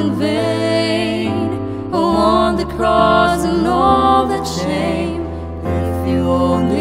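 A woman singing the chorus of a slow Christian pop ballad over instrumental backing, with the bass changing note every couple of seconds.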